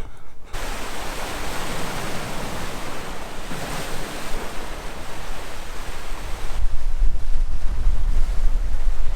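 Sea waves washing in with a steady rush of surf. From about two-thirds of the way through, wind buffets the microphone with a low rumble.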